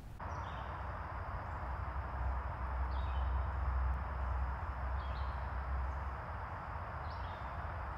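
Outdoor woodland ambience: a steady hiss over a low rumble that swells in the middle, with a faint steady high whine and a short high call, falling slightly in pitch, repeating about every two seconds.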